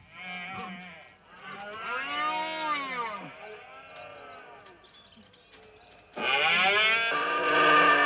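Red deer stags roaring in the rut. There are three roars: a faint short one, a long one that rises and then falls in pitch, and the loudest, held roar starting about six seconds in.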